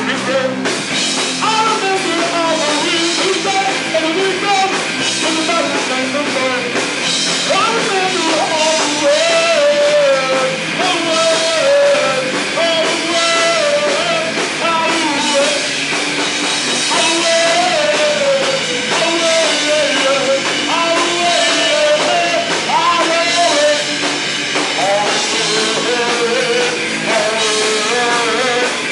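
Horror punk band playing live: electric guitar through Marshall amp stacks, bass and drum kit, with a sung vocal line over them.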